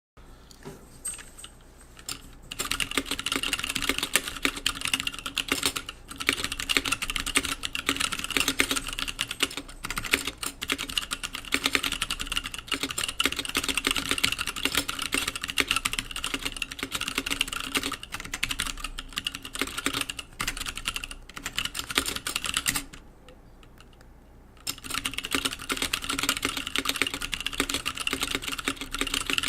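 Typing on a custom mechanical keyboard with 65g Zealios tactile switches on an aluminum plate, GMK keycaps, in an aluminum-and-acrylic Redscarf 78 case: a few scattered keystrokes, then fast continuous key clatter from about two seconds in. The typing stops for about two seconds around three-quarters of the way through, then resumes.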